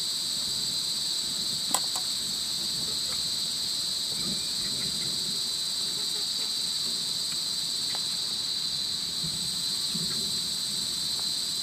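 Steady insect chorus, a high, even drone that holds unbroken throughout, with a single sharp click a little under two seconds in.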